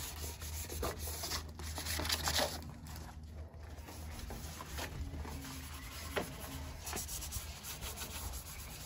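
Sandpaper scrubbing on the painted sheet metal of a 1971 VW Super Beetle's interior in short, irregular strokes, scuffing the old paint so primer will take.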